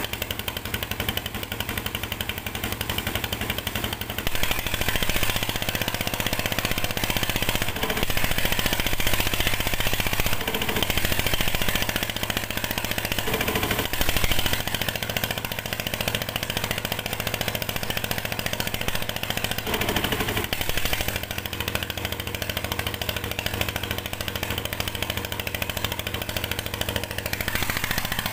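The engine of a water pump feeding hoses in a hydraulic gold-mining pit, running steadily, with the hiss of water jets spraying onto mud and rock.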